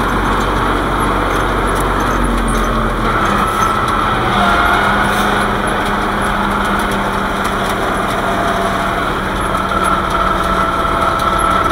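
Wheeled tractor's diesel engine running steadily under way, heard from inside the cab. The low rumble eases about three seconds in, and a faint high whine comes and goes.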